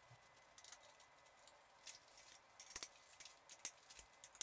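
Near silence with a few faint, scattered clicks and taps: hands handling a wooden bowl blank and its metal lathe fittings.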